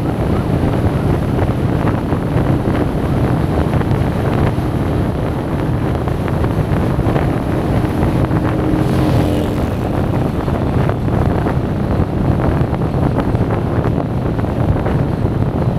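Steady wind buffeting the microphone over the running engine and tyre noise of a motorcycle cruising at highway speed.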